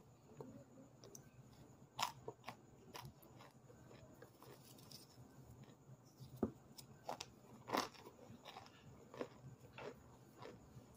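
Hardened cornstarch chunks being bitten and chewed close to the microphone: irregular sharp crunches, a few of them louder.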